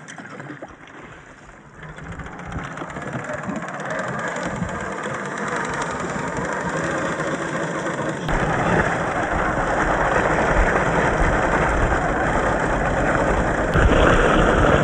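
Axial SCX10 III RC crawler's Hobbywing AXE550 brushless motor and drivetrain working hard as its tyres churn and spin through loose wet sand and gravel. The noise builds over the first couple of seconds, grows louder with more low rumble about halfway through, and cuts off abruptly at the end.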